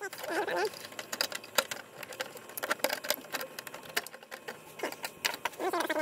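Irregular small clicks and taps of hands working wire spade connectors and small metal thermostat parts on an RV water heater.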